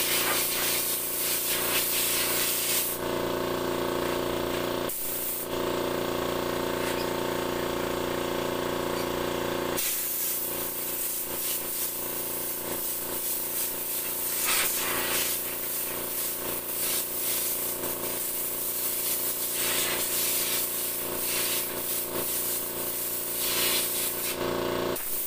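Compressed-air blowgun hissing as it blows dirt out of a car's A/C condenser and oil cooler, over a steady hum. The hiss eases about three seconds in and comes back full about ten seconds in.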